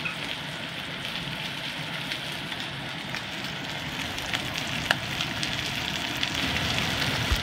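Ribeye steak searing in hot canola oil in a cast iron skillet over high heat: a steady frying sizzle with scattered sharp pops of spattering fat, one louder pop about five seconds in.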